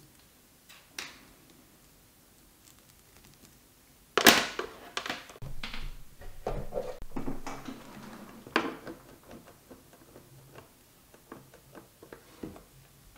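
Handling noise as a black power cable and a plastic galaxy light projector are handled on a wooden table. A sharp knock comes about four seconds in, followed by a run of clicks, knocks and rustles. Lighter plastic clicks come near the end, as the remote control's battery cover is taken off.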